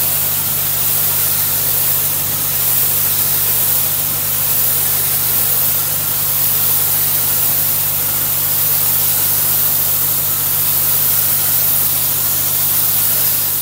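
A gentle water jet sprays steadily onto a stone surface, rinsing off the cleaning solution used against lime efflorescence. A steady low mechanical hum runs under the hiss of the spray.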